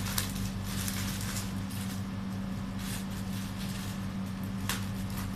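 Plastic packaging rustling and crinkling in several short spells as it is handled, over a steady low hum.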